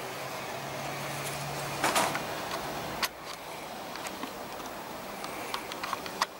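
Homemade lathe running with a steady mechanical hum, with a few sharp clicks and knocks, the loudest about two seconds in.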